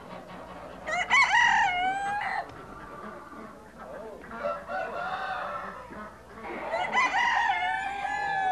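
Caged roosters crowing twice, about a second in and again near the end. Each crow is a long call that ends on a drawn-out held note, with softer, shorter calls between the two.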